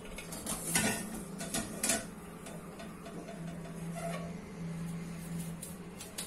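Aluminium pan clinking and knocking against the metal pan support of a gas hob as it is set down on a burner: a handful of sharp clicks in the first two seconds, then a low steady hum with a few faint ticks near the end.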